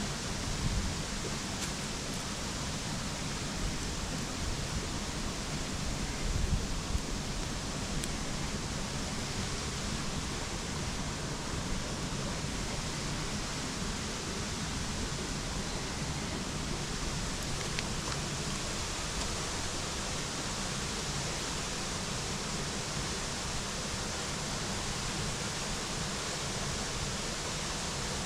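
Steady rushing of a river's running water.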